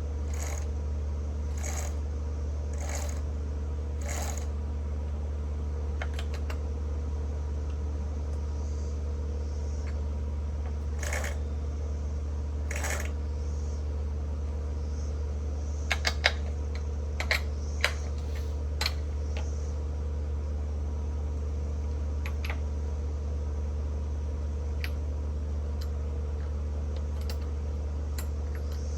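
A steady low hum runs throughout. Over it come scattered sharp metallic clicks and clinks of parts and tools being handled, a regular run of about one a second at the start and a louder cluster a little past halfway.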